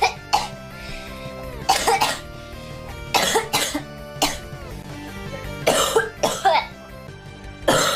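A girl coughing repeatedly in short bouts of one to three coughs, some of them voiced, every second or two, over steady background music.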